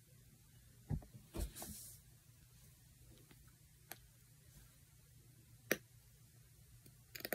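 Quiet handling of a chapstick lipstick tube while it is put on: a few scattered sharp clicks and a brief rustle over a low steady hum.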